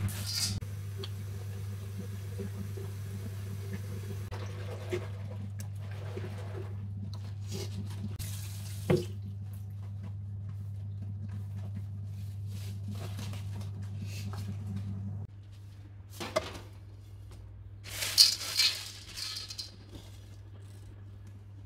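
Water in a ceramic bathroom sink as gloved hands rinse LECA clay pebbles, over a steady low hum. About fifteen seconds in this gives way to quieter handling sounds, with a few short rustles and knocks.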